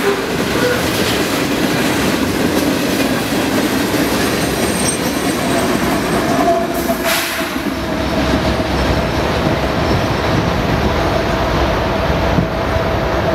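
Freight train's lumber-laden centerbeam flatcars rolling past with wheels clacking over the rail joints. About halfway through, the rear distributed-power GE ES44AC diesel locomotive goes by, bringing a deeper engine rumble and a steady whine that hold on after it passes.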